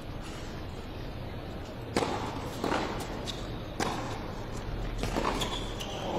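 Tennis rally in an indoor arena: a hushed crowd, then about two seconds in a series of sharp racket-on-ball hits and bounces, roughly six in all at uneven intervals. At the very end the crowd breaks into applause.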